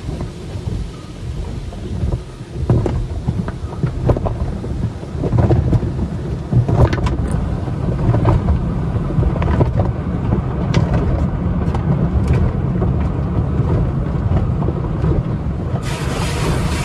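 Automatic tunnel car wash heard from inside the car: a steady low rumble of water and foam on the roof and glass, with the soft-cloth strips slapping and sweeping across the windshield from a few seconds in. Near the end a steady hiss sets in abruptly.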